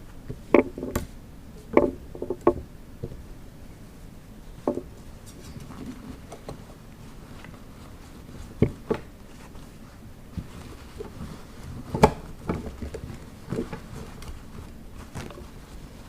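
Irregular knocks and taps of objects being handled, the loudest about half a second in, near two seconds, near nine seconds and near twelve seconds.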